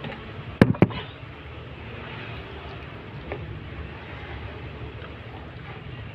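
Two sharp knocks about a quarter second apart, over a steady low rumble, with a fainter tick a few seconds later.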